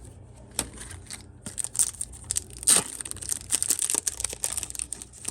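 A foil trading-card booster pack being torn open and its wrapper crinkled: a busy run of crackling rustles that thickens about one and a half seconds in.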